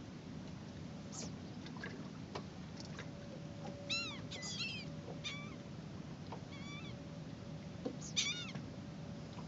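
Seagulls calling while they feed over a school of fish: short, arched, mewing cries in small bursts about four, five, seven and eight seconds in. A steady low hum runs beneath them.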